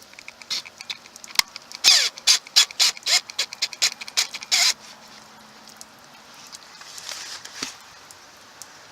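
Flat-blade screwdriver turning the screws out of an RV city water inlet: a quick run of sharp clicks and short squeaks from about a second and a half in to nearly five seconds, then only a few faint ticks.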